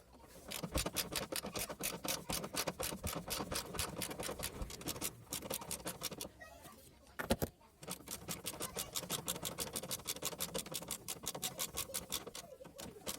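Rapid, even clicking of a ratchet wrench turning a bolt, about five clicks a second. It pauses briefly about five seconds in, there is a single sharper knock about seven seconds in, and then the clicking resumes.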